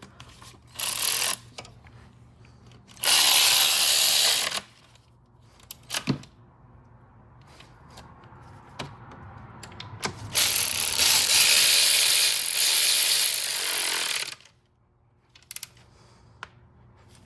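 Cordless power tool running in three bursts, the last and longest about four seconds, as the intake manifold bolts are run down, with small tool clicks and clanks in between.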